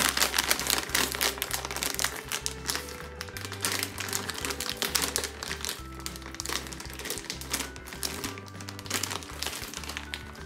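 A shiny plastic M&M's candy bag crinkling as it is handled and squeezed, with many sharp crackles, over background music with steady low bass notes.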